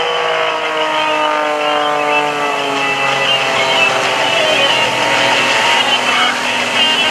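An Edge 540 aerobatic plane's six-cylinder Lycoming piston engine and propeller drone as it flies past, the pitch falling steadily over the first five seconds or so as it goes by.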